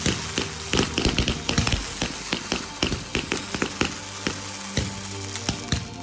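Low-noise fireworks going off as a rapid run of sharp crackles and pops, dense at first and thinning out over the last couple of seconds, over background music.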